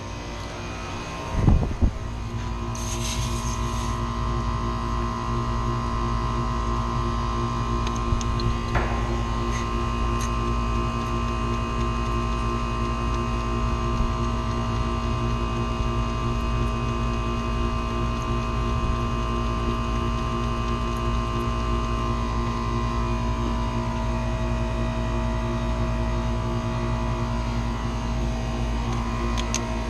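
A machine starts running about two seconds in and then holds a steady hum with a constant pitch, after a single thump just before it.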